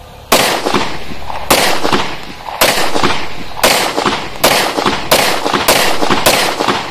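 Glock 19 9mm pistol fired in a steady string of about nine shots, roughly a second apart at first and coming faster toward the end, each sharp crack trailing off in a short echo.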